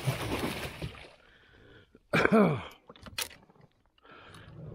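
Water splashing as a musky thrashes in a landing net at the kayak's side, dying away within about a second. About two seconds in comes a short, loud, falling exclamation or exhaled breath from the angler, followed by a few light clicks.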